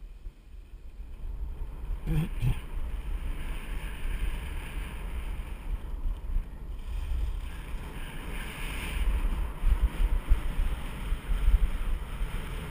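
Wind buffeting an action camera's microphone during a fast ski run, a gusty low rumble, with skis scraping and hissing over tracked, hard-packed snow.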